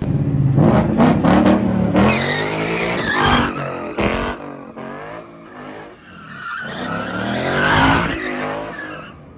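A car's engine revving hard, rising and falling repeatedly, while its tyres squeal and skid, as in a burnout or donuts. It starts suddenly and loud, eases off about halfway through, then builds again before fading near the end.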